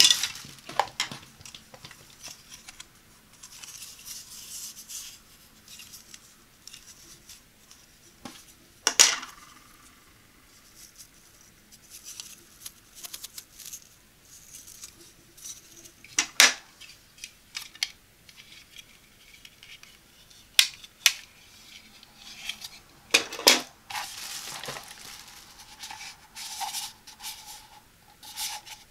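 Hard plastic garment-steamer attachments and a plastic measuring cup being handled and set down: scattered sharp clacks and taps, a few louder than the rest, with soft rustling of plastic between them.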